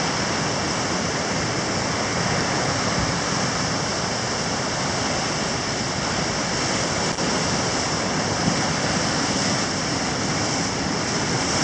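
Ocean surf washing onto a beach: a steady, even rush of water.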